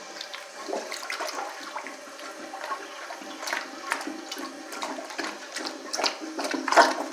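Toilet flushing: water rushing and gurgling down the bowl, loudest near the end.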